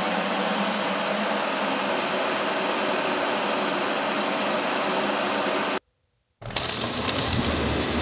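Ecovacs DEEBOT N8+ auto-empty station's suction motor running, a loud steady rush as it pulls the dust out of the robot's bin. It cuts off abruptly for about half a second a little under six seconds in, then resumes with a deeper hum underneath.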